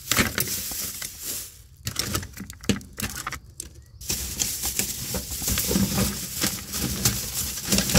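Tools in their packaging being handled and set down: irregular rustling and crinkling with quick light clacks. There is a quieter stretch about two to four seconds in, then the handling picks up again.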